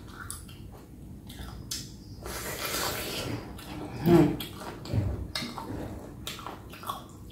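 Close-up wet eating sounds from a person chewing and sucking on pickled chicken feet, with many small crunchy clicks. There is a noisy slurping stretch a little after two seconds in and a louder short mouth sound just after four seconds.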